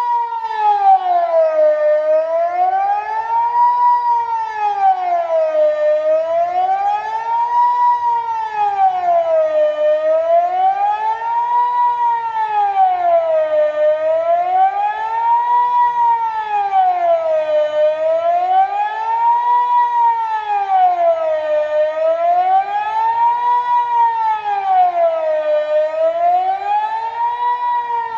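Swiss civil-defence siren sounding the General Alarm for the annual nationwide test; a viewer identified the local units as Kockum Sonics Delta-4s. Its wail rises and falls smoothly about once every four seconds, with a fainter lower tone moving along with it.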